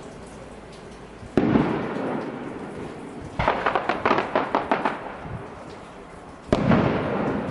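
Fireworks shells bursting: a sudden boom about a second and a half in that trails off, then a run of rapid crackling pops, then another boom near the end.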